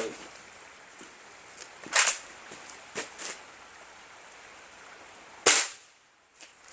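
Gamo Whisper Cat air rifle shooting: two sharp cracks, about two seconds in and about five and a half seconds in, with a few light clicks between them.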